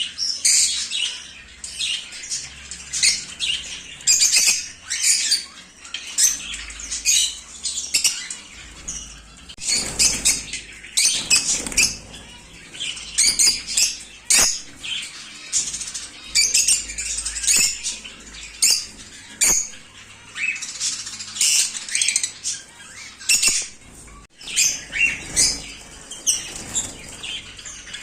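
Many small pet parrots chirping and squawking over one another without a break, with occasional wing flapping.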